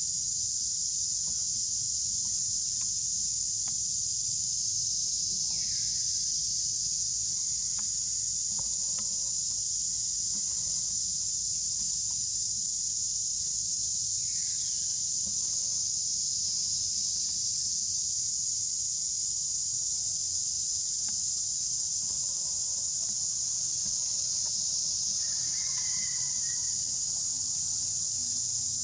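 Steady high-pitched insect chorus droning without a break, with a few faint, short falling chirps.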